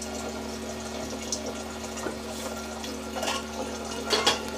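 Water being poured from a pot into a pressure cooker of soaked chickpeas, a steady splashing pour, with a couple of light knocks near the end.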